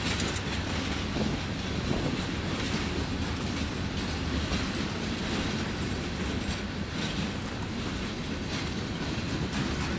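Freight train of loaded flatcars rolling past: a steady rumble of steel wheels on rail, with scattered light clicks as the wheels pass over the track.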